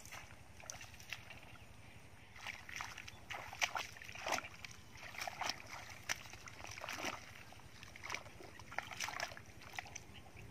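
Bare feet wading through shallow muddy water, with irregular sloshes and splashes as each step goes in and out.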